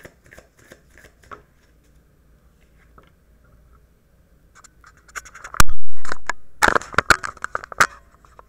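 Oracle cards being shuffled, a quick run of light clicks, then after a short pause loud scratching and scraping with sharp knocks as a card is drawn and laid down close to the microphone; the loudest knock is about five and a half seconds in.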